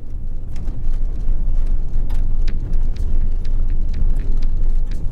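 Vehicle driving on a washboarded gravel road: a loud, steady low rumble of tyres and body over the rough surface, with many scattered sharp ticks and rattles.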